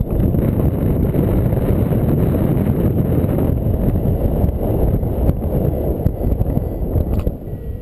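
Wind buffeting a GoPro's microphone in paraglider flight: a loud, rough, low rumble of rushing air that eases a little near the end.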